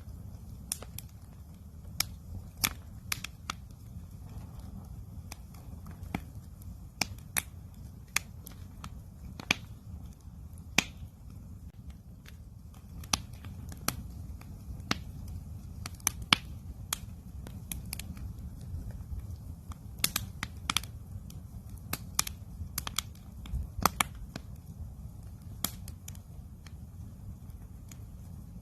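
Wood campfire crackling, with irregular sharp pops and snaps, some much louder than others, over a steady low rumble.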